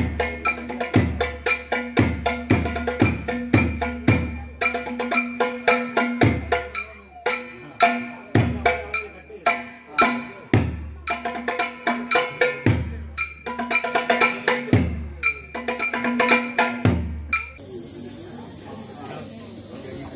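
Rhythmic percussion music: quick sharp clicking strokes with a deep drum stroke every second or two over a steady droning tone. Near the end it stops abruptly and a steady high chirring of crickets takes over.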